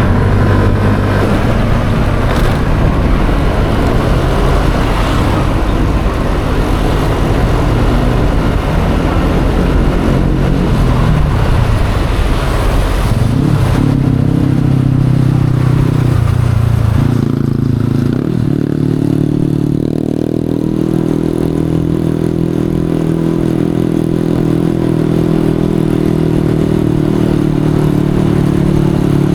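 Yamaha Aerox 155 scooter's single-cylinder engine under way, with heavy wind and road noise. A bit past halfway the rush of noise drops and the engine settles into a steady low hum after a short rise in pitch.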